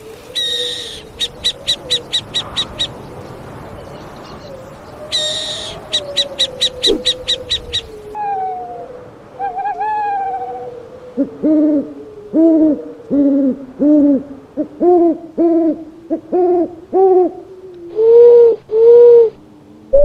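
Owl calls: two bursts of rapid chattering clicks in the first half, then a series of about a dozen short hoots, ending with two longer, louder hoots.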